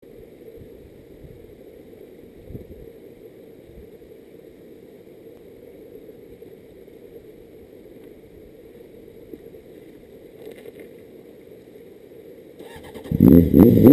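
Steady low rumbling outdoor background noise, then loud electronic music with keyboards comes in sharply near the end.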